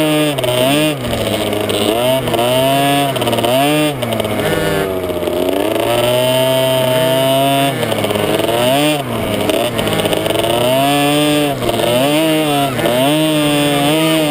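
Small two-stroke youth motocross bike engine heard close up from the bike-mounted camera, revving up and dropping back again and again as the throttle is worked, with one longer steady pull about halfway through.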